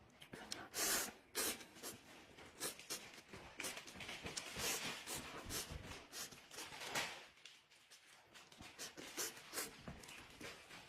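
Handling noises while instant noodles are prepared: irregular rustling and crinkling with scattered clicks and taps, the loudest burst about a second in.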